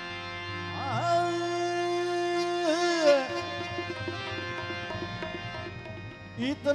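Devotional bhajan music between sung lines: accompanying instruments and hand drums play under one long held sung note that bends in pitch about a second in and again near three seconds.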